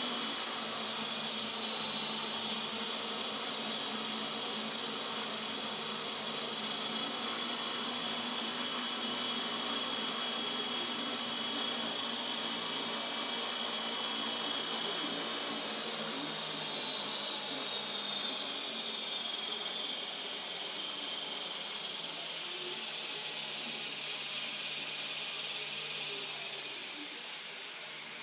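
Align T-Rex 450 SE electric RC helicopter in a hover: its brushless motor, gears and rotor blades give a steady high whine. In the last ten seconds or so the whine slides lower in pitch and grows quieter.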